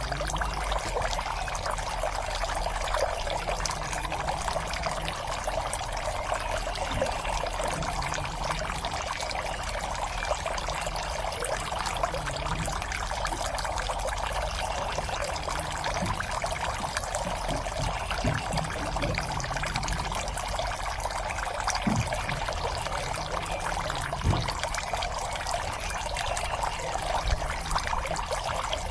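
Water steadily pouring and trickling into a fish pond, with a few faint low knocks near the end.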